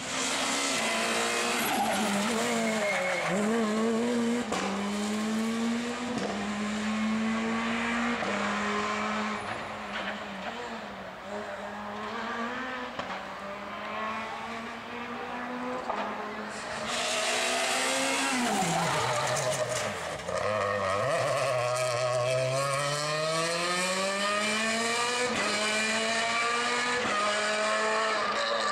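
Rally car engine at full power on a stage: the pitch climbs and drops sharply at each upshift through the first half. About two-thirds of the way in it slows for a bend, then accelerates away with a long rising pitch.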